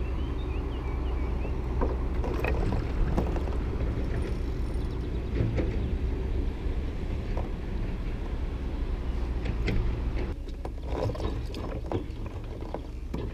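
Steady low rumble of wind and water on a kayak-mounted camera, with scattered clicks and knocks from the rod, reel and kayak hull as a hooked fish is fought.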